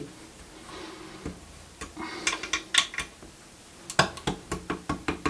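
Hard plastic and metal clicks and rattles, with some rubbing, from a toilet seat and its fixings being handled and adjusted. There is a cluster of knocks about two and a half seconds in, and a quick run of clicks from about four seconds in.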